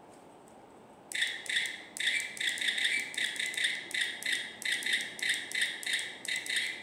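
Miniature toy camera keychain sounding a rapid run of electronic beeping clicks through its tiny speaker, about three to four a second, starting about a second in.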